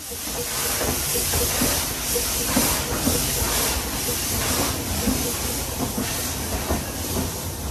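Talyllyn Railway steam locomotive No. 1 Talyllyn, an 0-4-2 saddle tank, working uphill, heard from the coach right behind her: a loud, steady hiss of steam over the running noise of the train. The sound gets louder at the start, as the train passes between brick walls.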